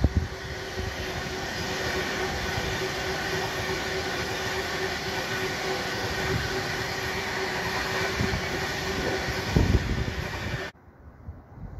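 Class 390 Pendolino electric train passing close by: a steady rushing roar with a held hum and a few low thumps. It cuts off suddenly near the end.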